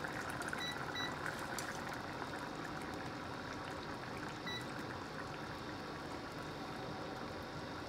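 Curry udon broth simmering in a stainless steel saucepan, a steady bubbling hiss. Three short high beeps sound, about half a second in, a second in and again around four and a half seconds.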